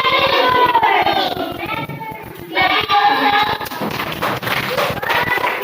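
Several young children's voices calling out together, drawn out and sing-song, with a short lull about two seconds in.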